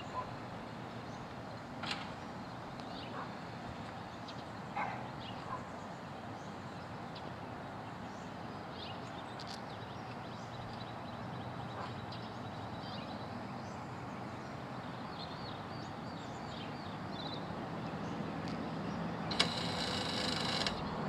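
Quiet outdoor background with a few faint short chirps. About a second and a half before the end, the solar tracker's 12-volt linear actuator motor starts with a whine as the tracker's pulse drives it to turn the panels toward the sun.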